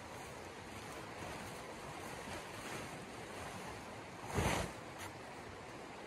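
Steady rush of a flowing stream, with one short loud flap of tent fabric being shaken out about four seconds in.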